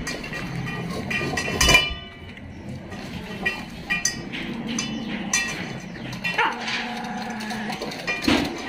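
Dogs eating from stainless-steel bowls on a tiled floor: scattered clicks and one sharp metallic clank of a bowl about two seconds in. Toward the end a dog gives a brief whine.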